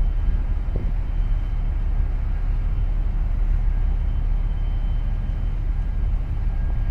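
Steady low rumble of a large container ship under way as it passes close by, with a faint steady whine above it.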